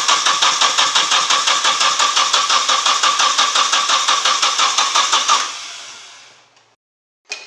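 Nissan 240SX's KA24 four-cylinder engine being cranked on the starter, an even chug of about five compression pulses a second, without catching. The cranking stops about five seconds in. The no-start comes from the distributor being set 180 degrees out.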